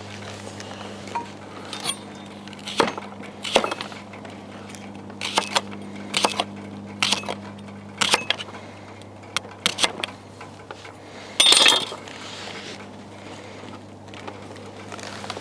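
Kitchen knife chopping leeks on a cutting board: irregular single knocks, with a brief, louder rasp about eleven seconds in.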